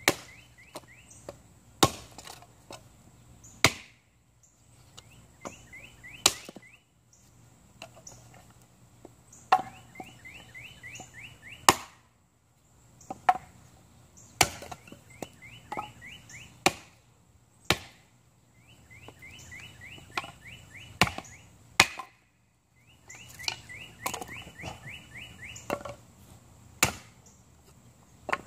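Snow & Nealley Penobscot Bay kindling axe splitting kindling on a wooden chopping block: sharp chops every one to three seconds, some hard and some lighter taps.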